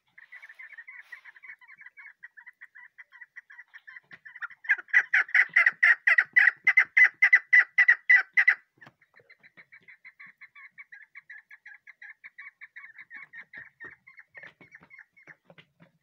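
Young chukar partridge calling in a fast run of short repeated notes, several a second. The calls grow much louder from about four and a half seconds in, break off at about eight and a half seconds, and carry on softer until near the end.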